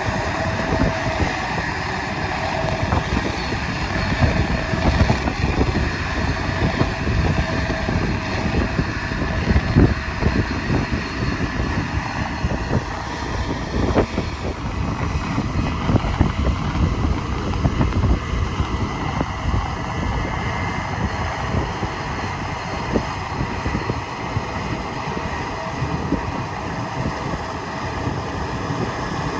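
Large harvest machinery running steadily, with a few faint steady tones in it, while wind buffets the microphone.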